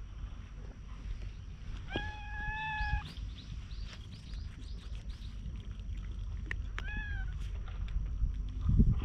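A stray cat meowing twice: one drawn-out meow about two seconds in and a shorter meow that drops in pitch near seven seconds. Wind rumbles on the microphone underneath.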